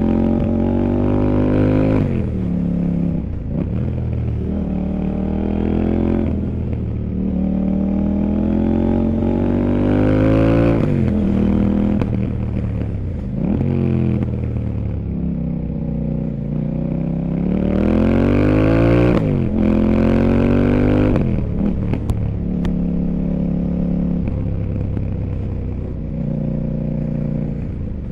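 CFMOTO 800NK Sport's parallel-twin engine under riding, its revs climbing and falling again and again as the motorcycle accelerates and slows. A few sharp clicks come about two thirds of the way through, and the engine runs steadier and lower near the end.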